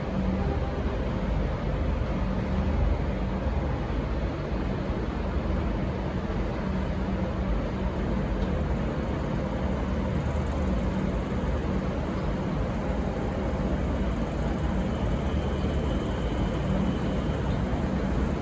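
Diesel train engines running with a steady low rumble and hum, with no horn sounding.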